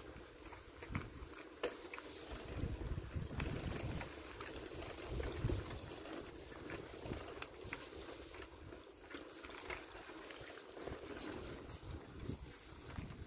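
Wind buffeting a handheld camera's microphone in uneven low gusts, with faint scuffing footsteps on a path.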